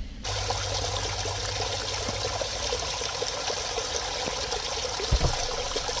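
Water pouring over a rock ledge in a small creek waterfall, a steady splashing flow that starts abruptly a moment in. A brief low bump about five seconds in.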